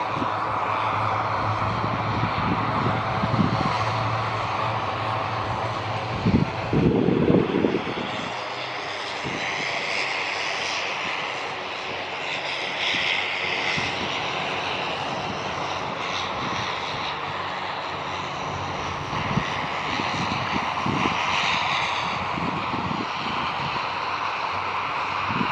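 Steady engine drone, with a loud, short low burst about seven seconds in.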